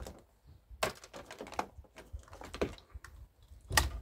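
Sharp clicks and knocks of plastic electrical scrap and cables being handled and cut with hand wire cutters, about four separate hits, the loudest near the end.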